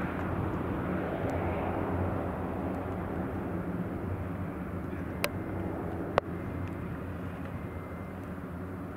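Cessna 208 Caravan's Pratt & Whitney PT6A turboprop engine running as the plane climbs away after takeoff: a steady low hum that slowly fades as it recedes. Two sharp clicks come about five and six seconds in.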